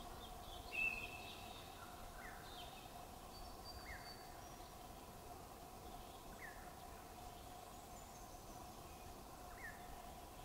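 Faint outdoor ambience of birds: a short note about a second in, then single short falling chirps every couple of seconds, over a steady low hum.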